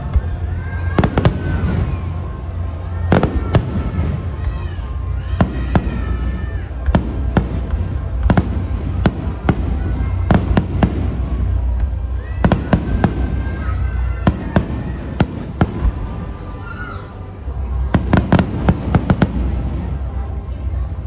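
Aerial fireworks shells bursting in an irregular, rapid series of sharp bangs, with a dense cluster of bursts near the end.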